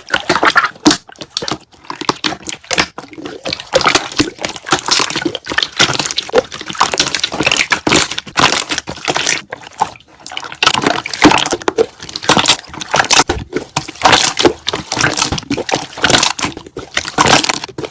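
Slime being squeezed and worked so that its trapped air bubbles pop in a dense, irregular run of crackles and clicks, with a few short pauses.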